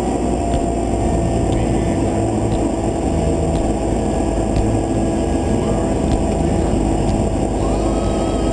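Single-engine light aircraft's piston engine idling while taxiing: a steady low drone, with a faint tick about once a second.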